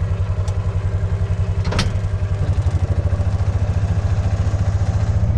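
Kawasaki Mule 610 utility vehicle's single-cylinder engine running steadily with an even, quick pulse, growing slightly louder near the end. A sharp click sounds just under two seconds in.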